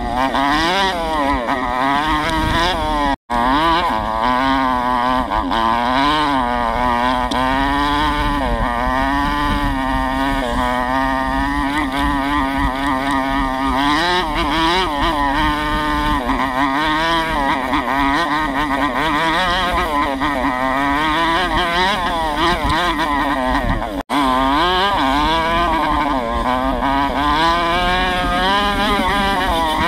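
A 125cc Chinese four-stroke dirt bike engine, its pitch constantly rising and falling as the throttle is worked through the trail. The sound cuts out for an instant twice, about three seconds in and again about six seconds before the end.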